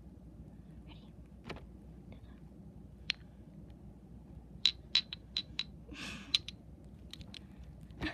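Sharp taps and clicks from handling a hard plastic tube, each tap with a brief bright ring, coming in a quick cluster around the middle, with a short rustle of handling.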